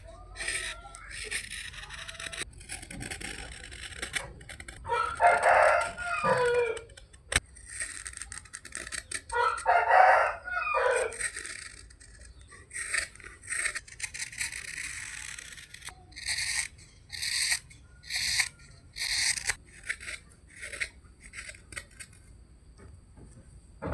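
A rooster crows twice, each crow about two seconds long; these are the loudest sounds. Later comes a run of short, quick scraping strokes, about one or two a second, typical of a carving knife cutting wood.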